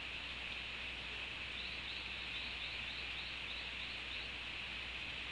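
A small animal calling in a run of about ten short, high chirps, a little over three a second. The chirps start after about a second and a half and stop about four seconds in, over a steady background hiss.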